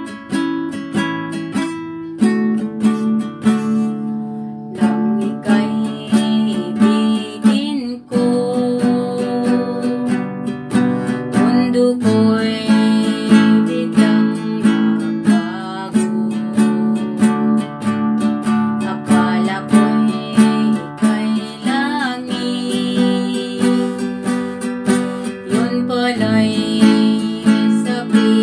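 Acoustic guitar strummed in steady chords, with a woman's voice starting to sing along about five seconds in.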